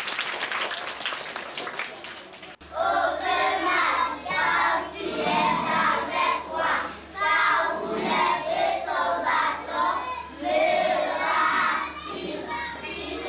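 A crowd of schoolchildren singing with hand clapping, then, after a sudden cut about two and a half seconds in, a small group of children singing a song. A steady low hum runs under the second part.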